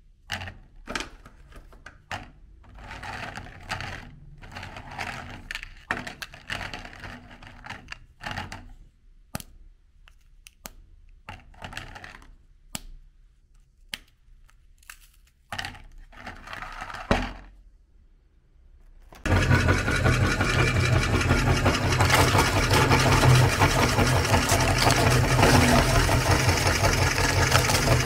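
Hard biscuits handled and snapped by hand, with scattered clicks and crackles. About two-thirds of the way through, an electric meat grinder's motor starts suddenly and runs steadily with a loud hum, turning its auger.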